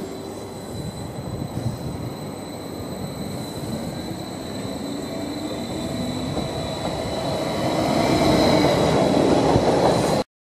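Train running on the station tracks: a rumble of wheels on rail with a steady high whine over it. It grows louder over the last few seconds as the train comes close, then stops suddenly near the end.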